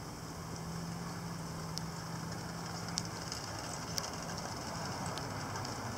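Steady rain and wind noise, with a few scattered sharp ticks and a low steady hum for the first few seconds.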